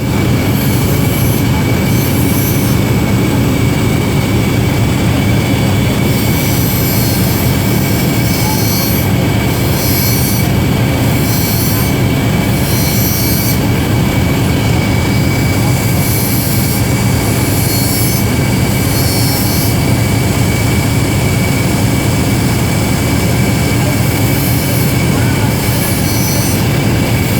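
Steady, loud machine noise: a low hum with a constant high whine, and a higher hiss that cuts in and out every second or so.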